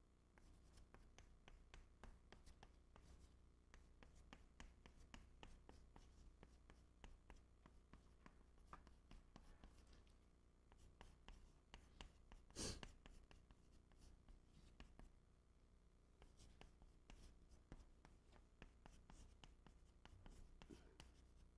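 Chalk writing on a chalkboard, faint: a run of short scratches and taps as the characters are stroked out, with one louder scrape about halfway through.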